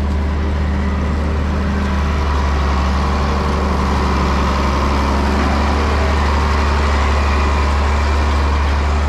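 Farm tractor's engine running steadily with a deep drone, growing slightly louder from about two seconds in.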